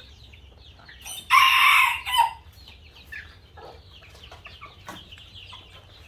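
A rooster crows once, loudly, starting about a second in and lasting about a second. Chicks peep faintly and steadily throughout.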